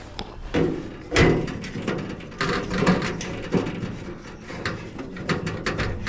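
Handling noise: an irregular run of knocks, clicks and scrapes, as of parts or tools being moved about, with the loudest knock about a second in.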